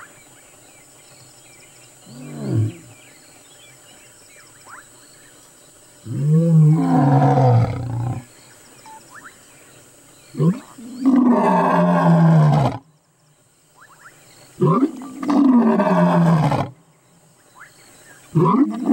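Male lion roaring: a short low moan about two seconds in, then a series of long, deep roars, each of the later ones opening with a short grunt, the last still going at the end.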